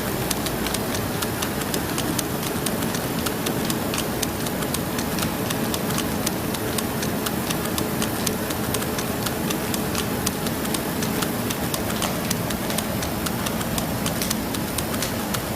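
Plastic Rubik's cubes clicking and clacking as they are caught and twisted while being juggled: many sharp, irregular clicks, several a second, over a steady background noise.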